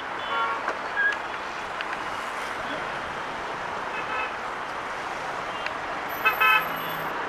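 Steady traffic noise from heavy expressway traffic of trucks, buses and cars, with several short vehicle horn toots, the loudest a burst of honks about six seconds in.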